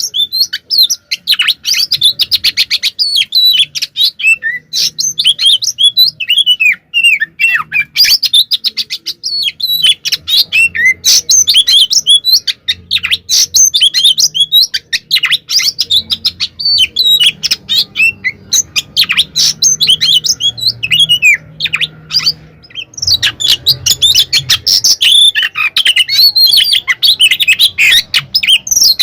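Oriental magpie-robin (kacer) singing nonstop in aggressive fighting song: a fast, varied stream of chirps, whistles and sweeping notes, with a brief pause a little past twenty-two seconds in.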